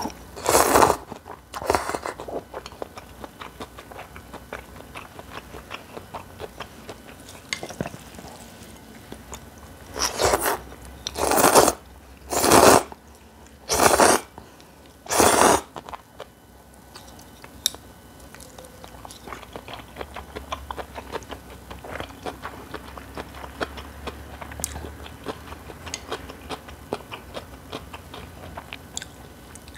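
Close-miked eating of cold noodles and spicy cabbage kimchi: seven loud bites, two right at the start and five more about a second apart midway, with quieter chewing and small mouth clicks filling the rest.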